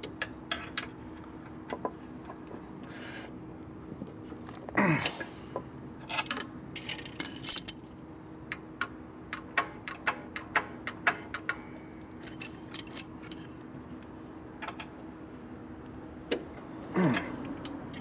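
Pliers and steel parts clicking and clinking as a motorcycle's throttle cable bracket and carburetor linkage are bent and adjusted by hand, with two short creaks that slide down in pitch, about five seconds in and near the end. A faint steady hum runs underneath.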